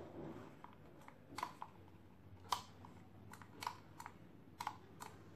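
Plastic trigger of a replacement two-way switch on a corded electric drill being pressed and released, giving sharp clicks about once a second, some in quick pairs. It is a check of the new switch's action in the trimmed handle, with no motor running.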